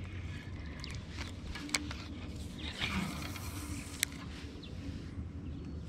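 Spinning rod and reel being worked: two sharp clicks about a second and a half apart with a short rush of noise between them, over a steady low rumble.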